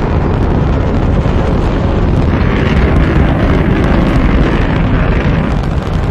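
Rocket engines at full thrust during liftoff: a loud, steady, deep noise that starts suddenly just before the rocket clears the pad.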